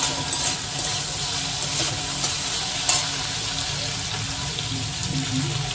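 Chicken pieces frying in a pan as they are browned, with a steady sizzle and a couple of sharp clicks.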